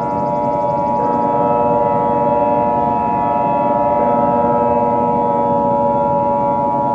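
Emergency Alert System two-tone attention signal: a steady, unbroken pair of tones just under 1 kHz, sounding over a low droning background.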